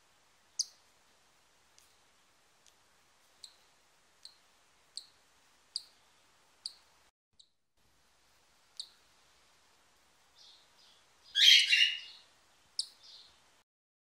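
Newly hatched cockatiel chick peeping: a string of short high cheeps roughly one a second, then a louder, longer, scratchier call about three-quarters of the way through, and one more cheep after it.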